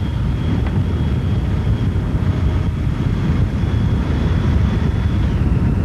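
Steady low rumble of wind and road noise from a racing bicycle moving at speed, heard on a microphone riding close to the cyclist. A faint thin high tone runs through it and drops slightly in pitch about five seconds in.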